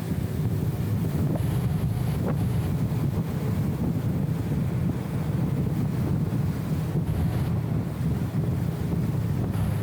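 BMW E34 M5 Touring driving at a steady pace, heard as an even low rumble of engine and road noise. The camera's anti-wind filter dulls and muffles it.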